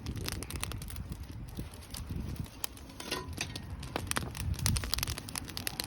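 Campfire crackling, with irregular sharp pops and snaps of burning wood over a low rumble.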